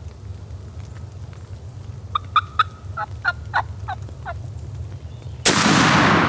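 A wild turkey gobbler gobbles, a rolling string of quick notes, then about five and a half seconds in a shotgun fires a single loud blast that rings on and fades slowly.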